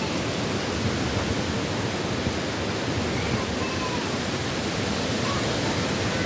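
Steady rushing noise of storm wind and rain as a hurricane builds.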